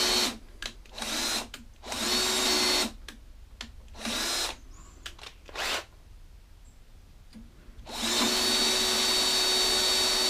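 Cordless drill boring a rivet hole through a lawnmower's metal handle tube. It runs with a steady whine, stops about a quarter second in, then runs in several short bursts with pauses between them, and runs steadily again from about eight seconds in.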